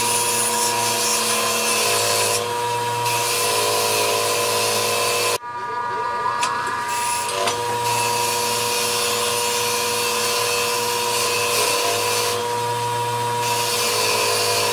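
Central Machinery 6-inch bench grinder running with a steady hum and whine while a flat metal part is ground against the wheel. About five seconds in the sound breaks off for an instant, then comes back with a brief slide in pitch before settling again.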